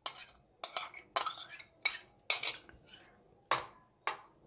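Steel spoon scraping and tapping against a bowl as cooked mushrooms are scooped into a plastic blender jar: a string of short, sharp clinks and scrapes.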